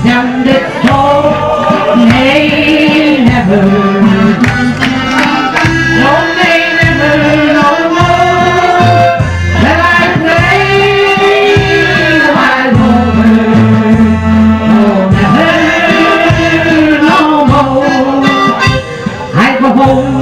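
Electronic keyboard playing live: a gliding, wavering melody over held bass notes and a steady drum-machine beat.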